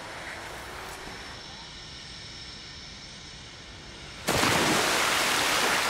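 Steady outdoor rushing noise at a water-ramp aerials jump as the skier slides down the wet inrun. About four seconds in, a much louder rush of water starts abruptly and holds, beginning to fade near the end.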